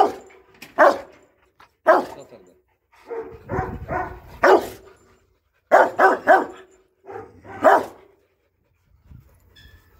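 Rottweiler guard dog barking aggressively: loud, deep barks in short bursts, sometimes singly and sometimes two or three in quick succession.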